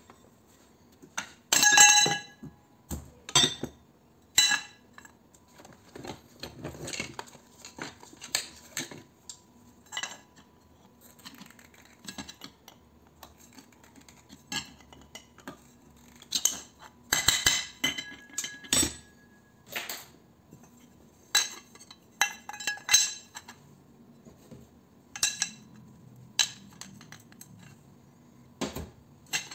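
Metal electric-motor parts clanking and clinking against a steel workbench plate while the motor is taken apart by hand and with pliers: irregular knocks, some with a short metallic ring, loudest about two seconds in and again around seventeen seconds in.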